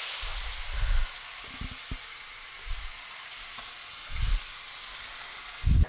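Bluefish fillet sizzling in butter in a frying pan, a steady hiss that eases off slowly, with several dull low thumps now and then.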